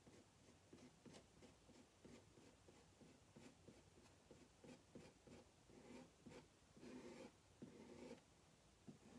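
Faint scraping of a plastic squeegee spreading chalk paste across a silkscreen transfer stencil, in short irregular strokes, a few a second, a little louder near the end.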